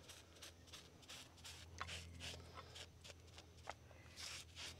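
Faint, irregular rubbing strokes of wood stain being worked onto black walnut boards, a few strokes a second, over a steady low hum.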